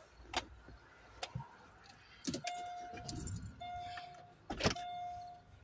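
A few sharp clicks and knocks, the loudest near the end, with a brief rustle, and from about halfway a steady electronic warning beep repeating about once a second.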